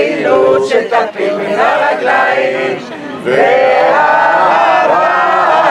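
A group of people singing a song together in Hebrew. The voices swell into a fuller, sustained chorus about three seconds in.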